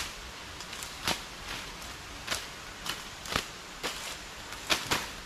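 Machetes slashing through undergrowth and leaf litter: a run of short, sharp cuts, one about every half second to a second.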